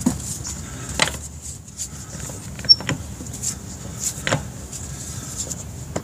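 Scattered clicks and knocks from a torque wrench and socket on a GMC Envoy's 35 mm front axle nut as it is torqued to about 110 ft-lb, with one sharp click about halfway through, over a faint steady hum.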